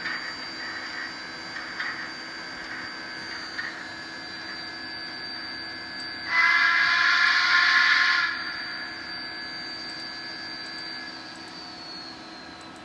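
ESU digital sound decoder in an N scale Kato GS-4 steam locomotive, heard through its tiny speaker: a steam whistle blown once for about two seconds, a little past the middle, over the steady sounds of the standing engine, with a few short puffs in the first seconds.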